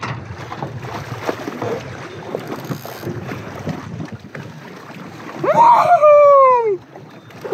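Wind on the microphone and choppy water around a fishing kayak, with scattered small knocks. About five and a half seconds in, the angler lets out one loud whoop that rises and then falls in pitch.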